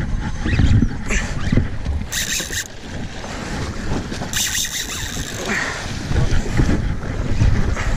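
Wind buffeting the microphone over open sea, a rough low rumble throughout, with two short bursts of hiss about two seconds and four and a half seconds in.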